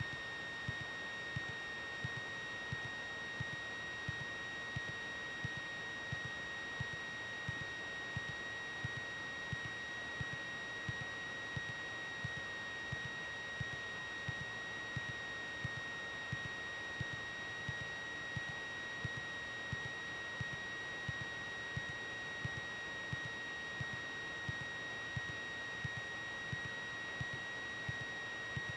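Steady high electrical whine on the cockpit intercom and radio audio feed, over a faint hiss, with a soft low tick repeating about one and a half times a second.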